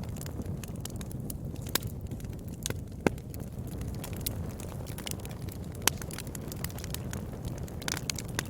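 Wood fire crackling: a steady low rush of burning with frequent irregular sharp pops, three of them louder than the rest.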